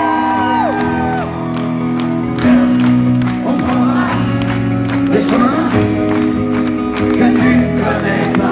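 Live pop music in a concert hall: sustained keyboard chords over a steady beat, with audience whoops dying away in the first second and a man singing into a microphone.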